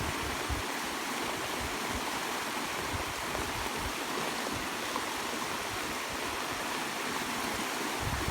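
Flood-swollen creek rushing over its breached bank: a steady, even rush of water.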